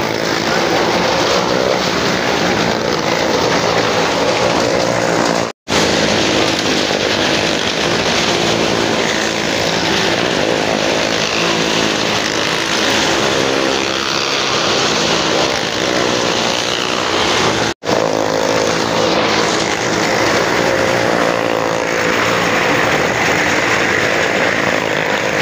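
Car and motorcycle engines running hard as they circle the wall of a wooden well-of-death drum: a loud, steady drone whose pitch rises and falls a little. It breaks off for an instant twice.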